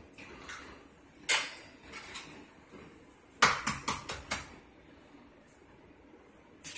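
Eggs tapped against the rim of a glass mixing bowl to crack them: one sharp tap about a second in, then a quick run of five or six taps a couple of seconds later.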